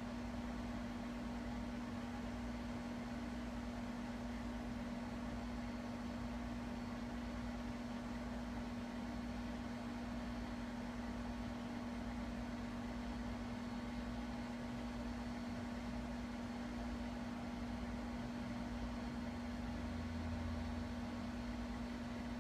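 Steady machine hum: one constant low tone over an even hiss, unchanging throughout.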